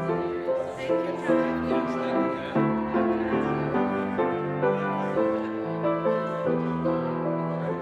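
Instrumental keyboard music, likely piano: a slow melody over held chords.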